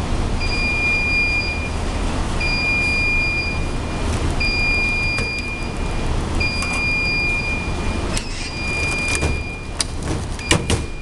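An electronic alarm beeping a steady high tone, about one and a half seconds on and half a second off, repeating every two seconds over a low steady rumble. A few sharp clicks and knocks come near the end.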